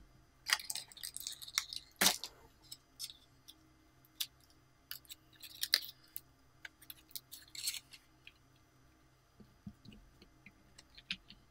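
Hands pressing, squeezing and pulling slime, giving irregular runs of small sticky clicks and squelches, busiest in the first two seconds and again in the middle, softer near the end.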